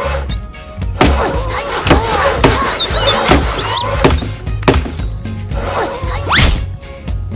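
Background music with a steady beat, overlaid by several sharp whacks and a rising swoosh about six and a half seconds in.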